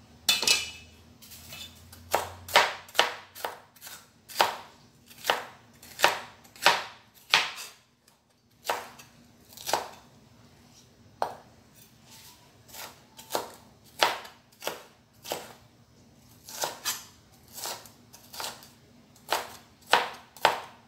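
Broad-bladed kitchen knife dicing a red bell pepper on a wooden cutting board: a series of sharp knocks of the blade on the board, roughly one or two a second, with a few short pauses.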